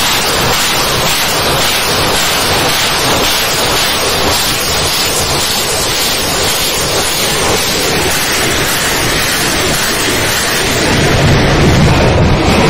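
Pinaka multi-barrel rocket launcher firing a salvo, rockets leaving the launcher one after another in a continuous loud roar, with a deeper rumble swelling near the end.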